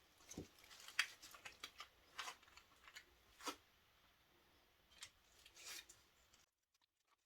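Near silence with a few faint clicks and rustles of small objects being handled, then dead silence near the end.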